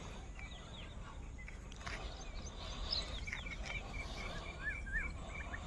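Birds chirping faintly, with a run of quick repeated chirps and a few rising-and-falling notes in the second half, over a low steady rumble.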